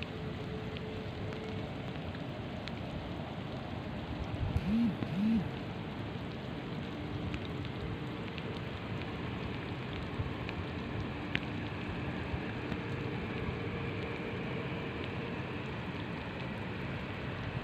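Steady hiss of rain with the distant engines of an airliner holding on the runway, a faint high whine coming in about halfway through. Two short low thuds just before 5 s are the loudest sounds.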